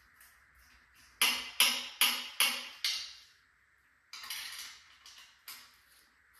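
Five sharp metal-on-metal strikes in quick succession, about two a second, each ringing briefly, followed by a few lighter metallic knocks and clatter.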